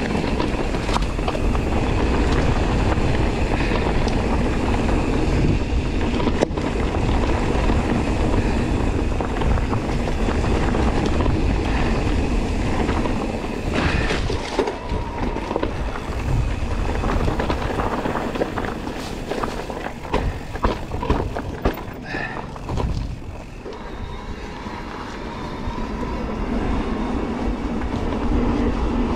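Continuous rumble and rattle of an electric mountain bike (Cube Stereo Hybrid 160) rolling fast over a rough dirt trail, with many small sharp clicks from the bike jolting over bumps. The noise eases for a few seconds about three-quarters of the way through, then runs on steadily.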